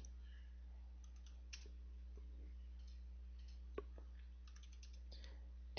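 Faint computer mouse clicks and keyboard keystrokes, a few scattered short clicks with the sharpest two just before four seconds in, over a steady low hum.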